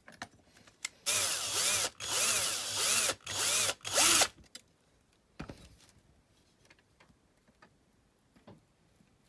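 Small electric drill run in four short bursts, its motor speed rising and falling, drilling out the die-cast metal rivet post that holds the window glass of a toy car. A few light clicks follow.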